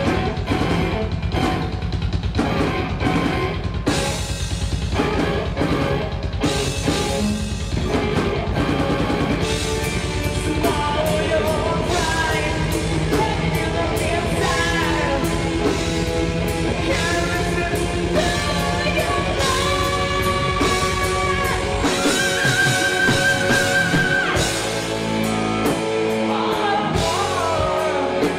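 Live rock band playing: drum kit, bass guitar, electric guitar and keyboards, with sustained lead lines over the band later on.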